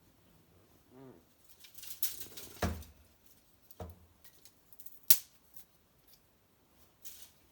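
Small fire of dried maple twigs crackling in a hearth, with scattered light pops and two sharper snaps about two and a half and five seconds in.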